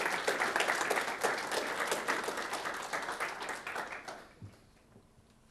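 Audience applauding, a dense patter of many hands clapping that thins out and fades away about four seconds in.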